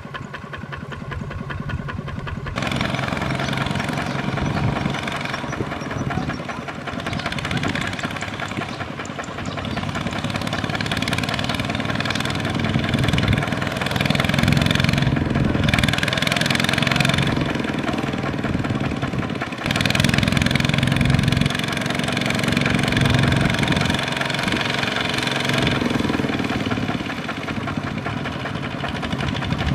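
Single-cylinder diesel engines of two-wheel walking tractors (power tillers) running under heavy load as they pull loaded trailers through deep mud. The sound changes abruptly about two and a half seconds in and again about twenty seconds in as one machine gives way to another.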